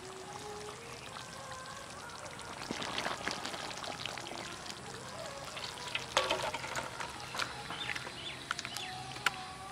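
Thick mutton and potato curry poured and scraped from a metal cooking pot into a stainless steel bowl: wet sliding and splattering with metal clinks and clatter, loudest about six seconds in, and a sharp clink near the end.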